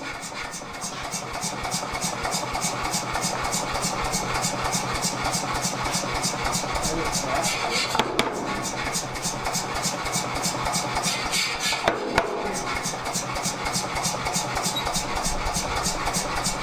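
88 lb Anyang air power hammer running and striking a hot steel swage block in a fast, even rhythm of blows, with two sharper knocks about halfway through and again about four seconds later.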